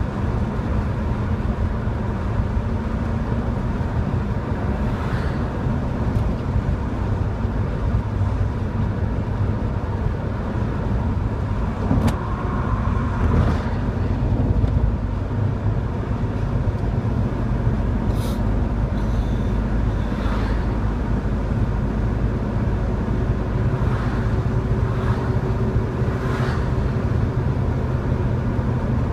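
Steady drone of a classic Chevrolet Chevelle's engine, with tyre and wind noise, heard from inside the car while it cruises at road speed. A few brief knocks and clicks sound over it.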